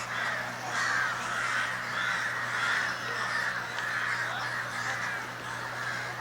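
A large flock of birds calling all at once, a dense, unbroken chatter of harsh, crow-like calls. A steady low hum runs underneath.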